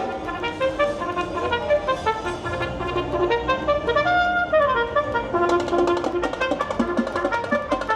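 Upbeat brass-led instrumental music, trumpet-like melody over accompaniment; a steady percussive beat comes in about five and a half seconds in.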